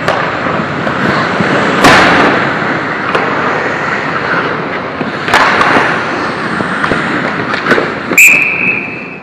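Ice hockey play: skates scraping the ice, with sharp knocks of sticks and puck, the loudest about two seconds in and again a little after five seconds. Near the end a scramble at the net brings a cluster of knocks, then a referee's whistle blows one steady shrill note for about a second to stop play.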